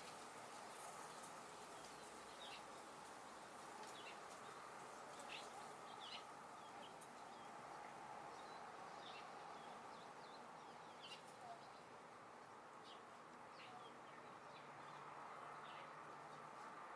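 Faint outdoor ambience: small birds give many short, high, downward-sliding chirps scattered throughout, over a steady soft hiss.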